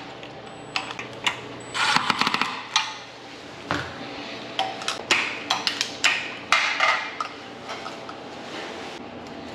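Irregular knocks, clicks and rattles of hand work on ceiling fan parts and hardware, with a quick run of clicks about two seconds in, over a faint steady hum.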